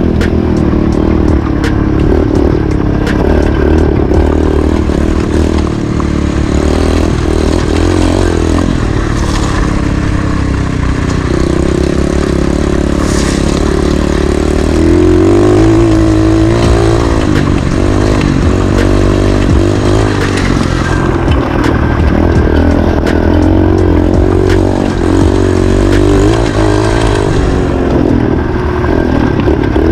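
Pit bike engine running as it is ridden over a dirt trail, its pitch rising and falling with the throttle, with wind noise over it.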